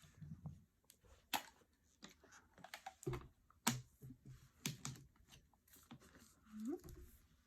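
Faint, scattered clicks and taps of small objects being handled, with a brief rising squeak near the end.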